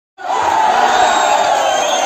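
A large crowd of spectators cheering and shouting at a volleyball point just won, cutting in abruptly a moment in.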